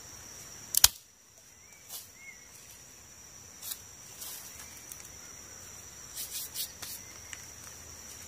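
Dry twigs being snapped and handled, with one sharp snap about a second in and lighter cracks and clicks later, over a steady high-pitched buzz of insects.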